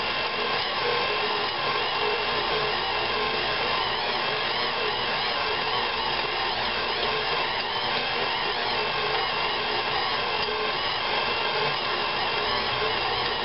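KitchenAid Classic stand mixer running steadily, its motor driving the dough hook as it kneads pizza dough in the steel bowl.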